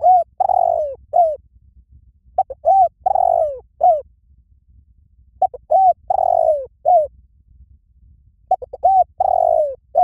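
Spotted dove cooing: the same phrase four times, about every three seconds, each a couple of short notes, a longer falling coo and a short closing note.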